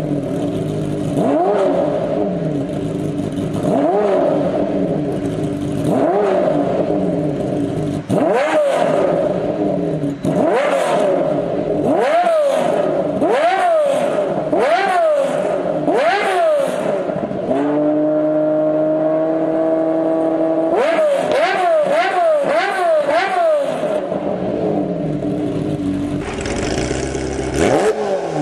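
Ferrari F50's naturally aspirated V12, fitted with a Kreissieg aftermarket exhaust, revved hard while stationary in short blips, one every second or two. About two-thirds through it is held at steady revs for about three seconds, then blipped again. Near the end another car's exhaust takes over.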